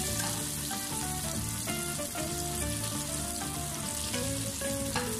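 Battered chicken pieces deep-frying in hot oil: a steady sizzle. A gentle background melody of held notes plays over it.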